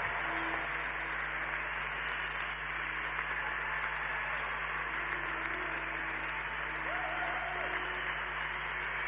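A large audience applauding: dense, steady clapping from a big crowd at the close of a speech.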